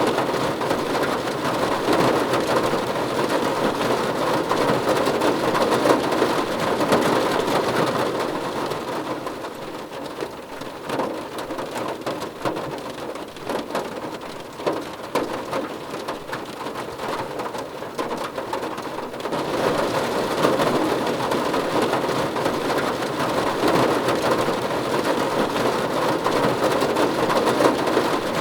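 Rain falling on a car's body and glass, a dense steady patter of drops. About eight seconds in it eases to lighter, more separate drop hits for roughly ten seconds, then comes back heavy.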